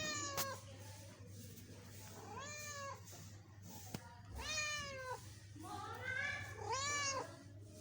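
Kitten meowing over and over, about five meows a second or so apart, each rising then falling in pitch.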